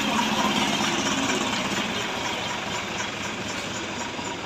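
Tow truck's engine running steadily, swelling a little in the first second or so and then settling.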